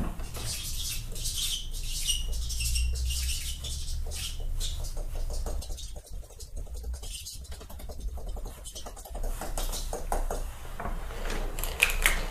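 Fingertips dabbing paint onto a sheet of paper on a wall: an uneven patter of many quick, soft taps on the paper.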